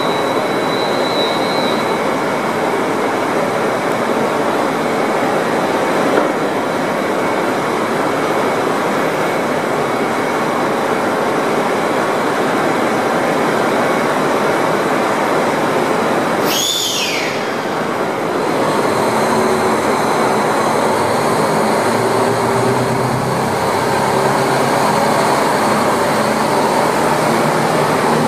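JR Hokkaido KiHa 261 series diesel express standing at the platform with its engines running loudly and steadily, then throttling up as it pulls away, the low engine note climbing in steps. About two-thirds of the way through there is a brief whistle-like tone that falls in pitch. The high whine over the diesel noise is taken by the uploader for the turbochargers.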